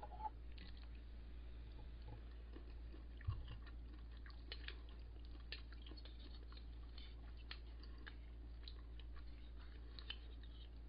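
Quiet eating sounds: soft chewing with small scattered clicks and taps, over a steady low hum. One sharper knock comes about three seconds in.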